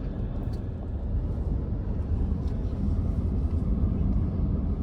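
A truck driving along a road: steady low rumble of engine and tyre noise, growing a little louder about halfway through.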